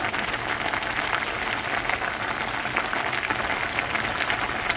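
A pot of doenjang soup with spring chives, tofu and vegetables at a full rolling boil, giving a steady, dense crackle of bursting bubbles.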